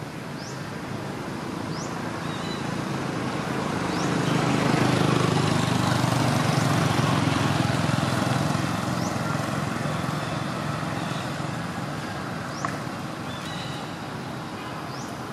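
A passing vehicle: a broad rumble that swells to a peak about five seconds in and slowly fades away, with a few short, faint rising chirps above it.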